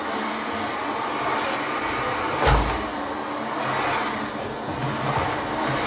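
Kärcher VC 6.150 canister vacuum cleaner running steadily, with a sudden thump about two and a half seconds in.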